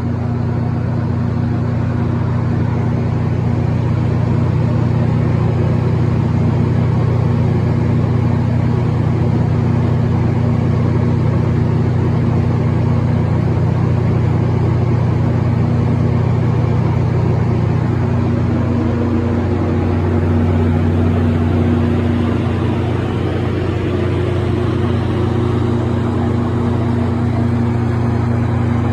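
John Deere 6081AF001 inline six-cylinder diesel engine of a Kohler 180 kW generator set running steadily at constant governed speed, a loud, even hum. Its tone shifts slightly about two-thirds of the way through.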